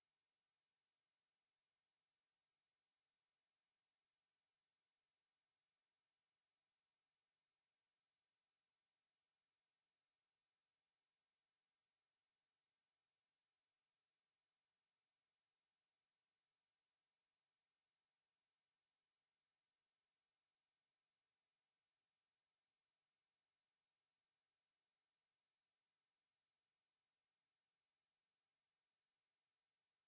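A continuous, steady high-pitched 11237 Hz sine-wave test tone at one unchanging pitch and level, the kind played to test speakers and shake dust and water out of them.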